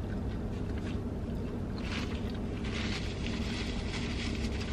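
Steady low hum of a running car heard from inside the cabin, with a soft hiss that swells about two seconds in.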